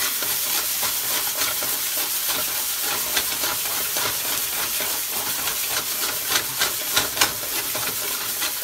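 Chicken breast topped with chopped kale frying in a hot pan: a steady sizzle with crackles and spits popping through it, the sharpest pops falling between about three and seven seconds in.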